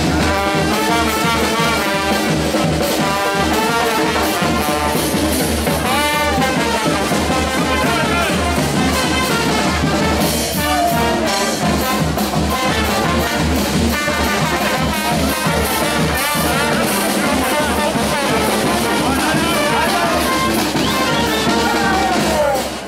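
Charanga street band playing: trombones and trumpets over a tuba, with a bass drum and cymbal keeping a steady beat. The music stops near the end.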